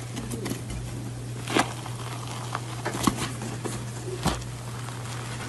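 Hands tearing open a soft chocolate-filled cake: faint crackling and three light ticks over a steady low hum.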